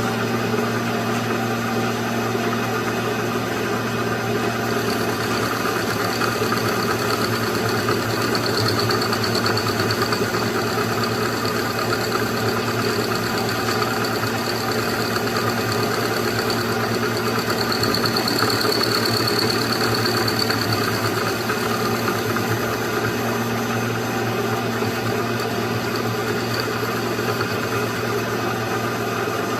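Worn Bridgeport milling machine running steadily with a constant motor hum while its cutter takes a pass across a block. A high whine from the cut comes in twice, about nine seconds in and again around eighteen seconds.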